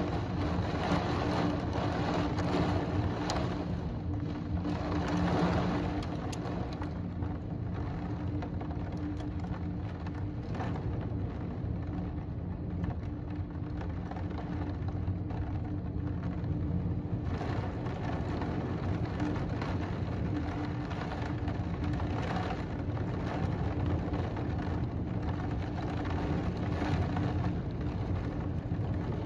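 Heavy rain falling in a thunderstorm, a steady hiss a little louder during the first few seconds, with a constant low hum underneath.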